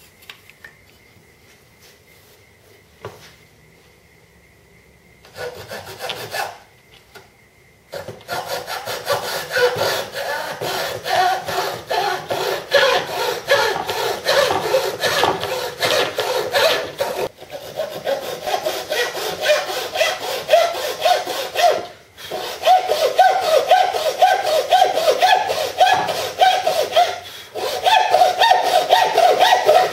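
Hacksaw with a freshly waxed blade cutting aileron slots into a moulded fibreglass-and-Kevlar model wing in quick back-and-forth strokes. After a few faint seconds it starts with a few strokes around six seconds in, then saws steadily from about eight seconds, stopping briefly a few times.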